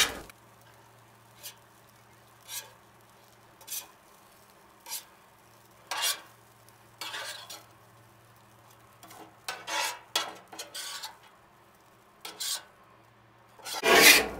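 Metal spatula scraping across the steel griddle top in short, spaced strokes, about ten scrapes with pauses between them, working the finished fried rice on the Blackstone griddle.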